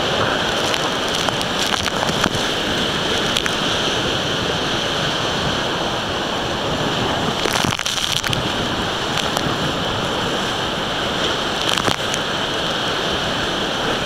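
Whitewater rapid on the Colorado River rushing loudly and steadily around a raft. Waves splash over the bow a couple of times, about halfway through and again a few seconds later.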